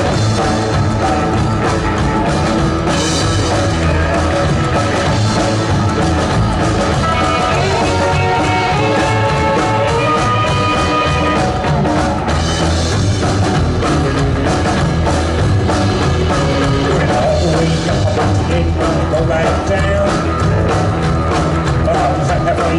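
Rock band playing live: drum kit and guitar with singing.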